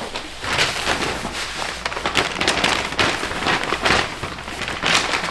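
Gift wrapping crinkling and rustling as it is handled and pulled apart, a dense run of quick crackles.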